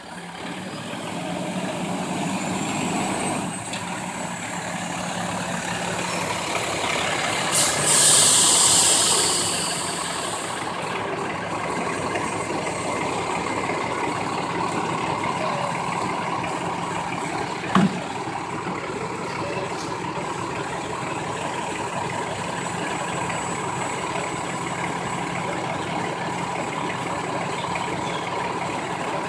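Sterling recycling truck's diesel engine idling steadily, with a loud hiss of air brakes about eight seconds in lasting a couple of seconds. A single sharp knock comes later on.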